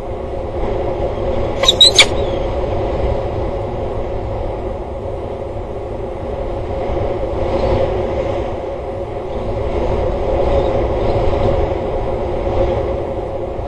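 Steady wind rumble on the microphone with a constant low hum, and a short cluster of sharp clicks about two seconds in.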